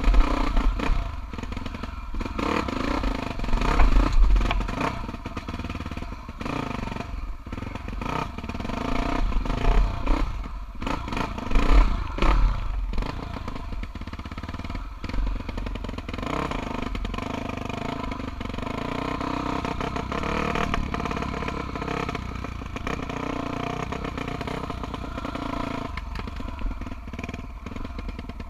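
Honda Tornado enduro bike's single-cylinder four-stroke engine revving up and down while being ridden over rock, with the bike clattering and thudding over the rough ground. From about halfway on, the engine runs at a steadier pitch.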